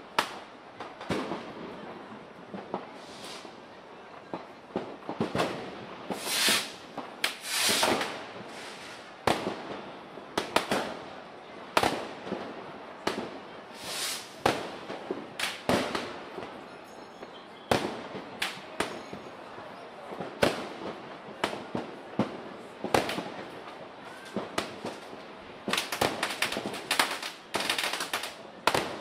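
Fireworks and firecrackers going off in a steady, irregular string of sharp bangs, dozens over the span, with a few longer hissing bursts among them.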